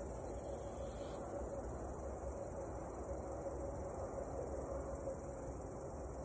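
Crickets chirping in a steady high-pitched chorus.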